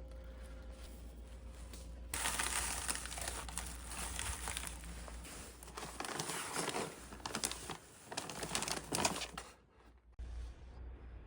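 Crinkling and rustling with many small irregular clicks, growing louder about two seconds in and cutting off suddenly near the end.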